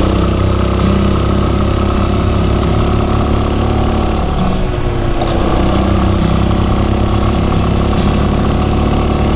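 Yamaha Serow 250's air-cooled single-cylinder engine running steadily under way, with the engine note dropping briefly about halfway through before settling again.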